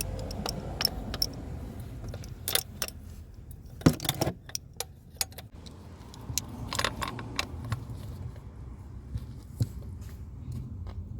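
Scattered metallic clinks and taps of mole grips working a new spin-on oil filter tight by a quarter turn, with one loud clack about four seconds in, over a low steady rumble.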